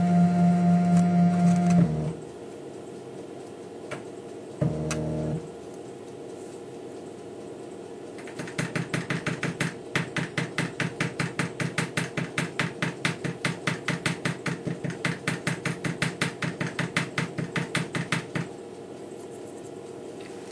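Emco F1 milling machine's Z-axis drive: a steady motor hum as the head moves, stopping about 2 s in, then a short burst of the same hum. From about 8 s to 18 s comes a long run of evenly spaced taps, roughly five a second. Each tap is the head stepping up 1/100 mm while the tool's height is set against a slip gauge.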